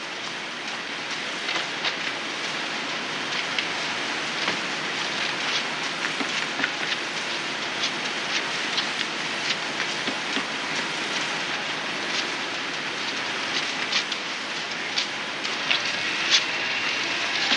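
Xerox 9400 duplicator running a print job: a steady mechanical rattle and whir with irregular clicks as sheets feed through and drop into the tray. It gets louder near the end.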